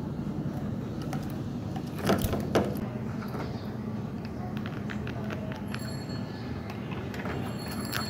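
Budgerigar biting into raw pumpkin: small scattered beak clicks and pecks against the terracotta saucer, with two louder knocks about two seconds in, over a steady low background rumble.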